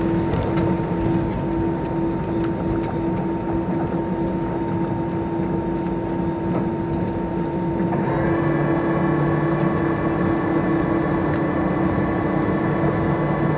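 Cabin noise inside an Airbus A320 on the ground after landing: a steady engine and cabin-air drone with several steady tones. About eight seconds in, the tones step slightly higher in pitch and new higher tones join in.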